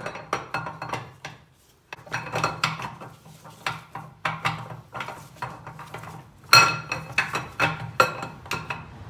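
Camshaft being slid out of a 5.3-litre iron-block LS V8 by hand, its steel lobes and journals clinking against the cam bearings and block in a run of sharp metallic clicks, each with a short ring. There is a brief pause just before two seconds in, and the loudest knock comes about six and a half seconds in.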